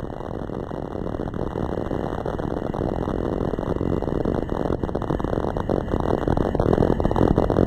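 Drag-race car engines running on the starting line: a loud, rough rumble with many sharp pops, growing louder toward the end.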